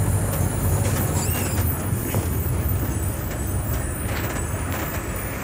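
Heavy road vehicle's engine running, heard from inside the cab: a steady low drone with road noise, easing off slightly toward the end.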